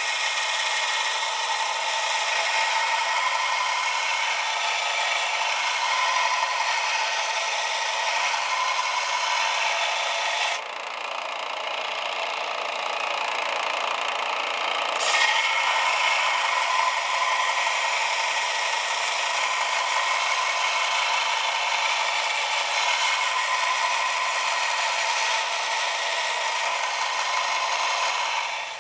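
Small bench belt sander running with a steel drawknife blade held against its abrasive belt, a steady hiss of grinding. The sound dulls abruptly about ten seconds in and brightens again about five seconds later.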